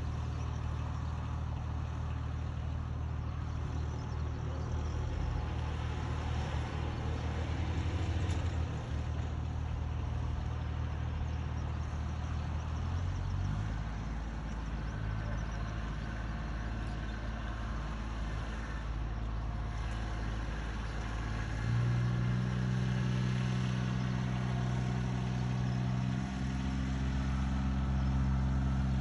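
Riding rice transplanter's engine running, with a small truck's engine alongside. About halfway through the low engine note changes, and about two-thirds in an engine revs higher and gets louder as the transplanter moves off.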